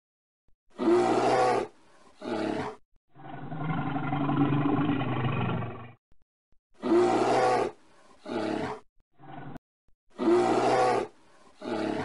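A bear roaring, a string of loud roars with short silent gaps between them and one long drawn-out roar lasting about three seconds in the middle. The same roar comes back several times.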